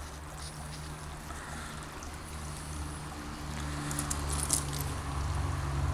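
Steady low hum with a hiss under it, and a brief burst of crackling about four seconds in as a lighter flame is put to a paper sky lantern.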